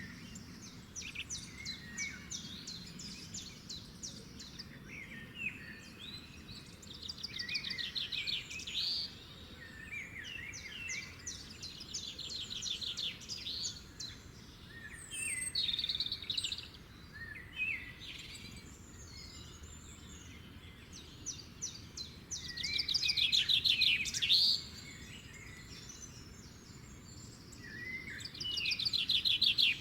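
Songbirds singing and calling: fast trilled songs, each a second or two long, come every few seconds, with short chirps between them, over a faint steady background hiss.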